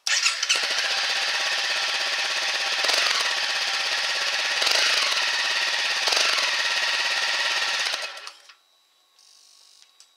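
Honda CRF250L's single-cylinder four-stroke engine running through its stock exhaust silencer, rising briefly three times as the throttle is blipped. It dies away about eight seconds in.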